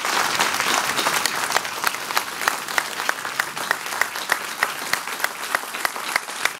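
Audience applauding, a dense steady clatter of many hands with a few sharp claps close by standing out about three times a second; it cuts off abruptly at the end.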